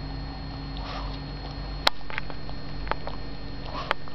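A Pekingese dog chewing and tugging at cloth: soft rustles and a few sharp clicks, the loudest about two seconds in.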